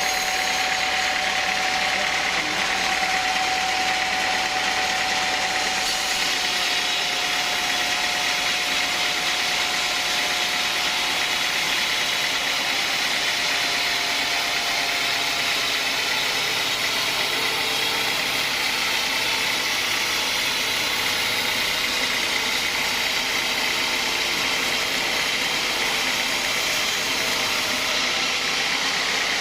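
Sawmill saw running steadily under power, a continuous mechanical whine with a steady hiss of noise over it.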